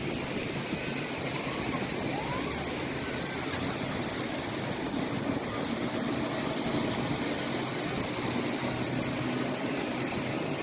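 Steady rushing of a waterfall, with a faint low hum underneath in the second half.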